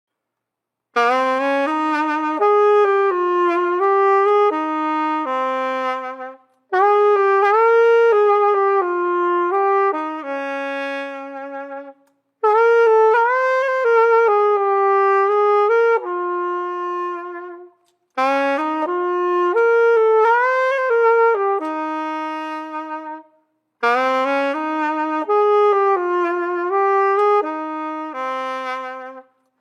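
A solo wind instrument playing a slow melody unaccompanied, in five phrases of about five seconds each with a short breath-break between them.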